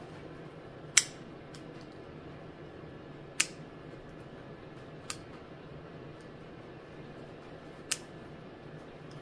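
Small pet nail clippers snipping through a rabbit's claws: four sharp snaps at uneven gaps, the first two loudest.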